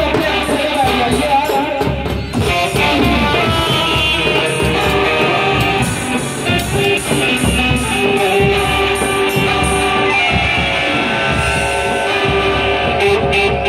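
Folk drumming on a large frame drum struck with a stick and a dhol, under a melody of held and sliding notes.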